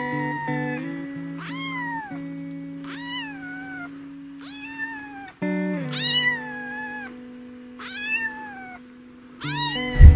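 A kitten meowing over and over: about seven high calls a second or so apart, each rising then falling in pitch, over background music with sustained notes. A short low thud right at the end.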